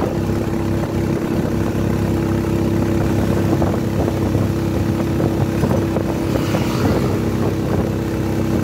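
Vehicle engine running at a steady pitch while driving along a paved road, with road and wind noise over it.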